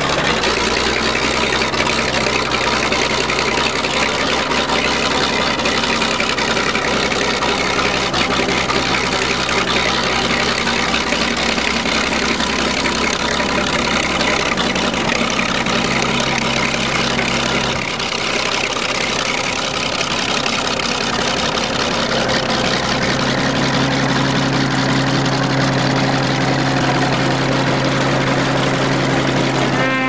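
Bulldozer engine running steadily as the machine pushes snow with its blade. The note dips briefly about two-thirds of the way through, then runs stronger towards the end.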